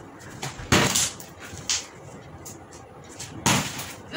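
Partly filled plastic water bottle flipped and knocking down on a table: two loud knocks about three seconds apart, with a smaller knock between them.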